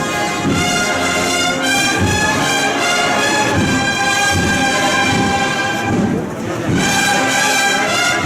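Brass band playing a slow Holy Week processional march, with held brass chords over a low drum beat. There is a brief break about six seconds in before the band comes back in.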